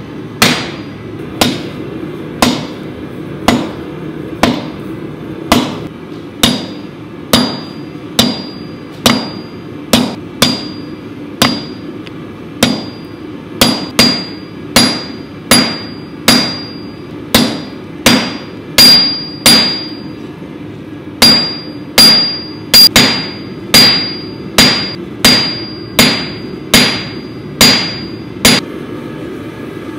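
Hand hammer striking red-hot O1 steel on an anvil to flatten it: steady blows about three every two seconds, many leaving a short high ring from the anvil. There is a brief pause about twenty seconds in, and the blows stop shortly before the end, over a steady low hum.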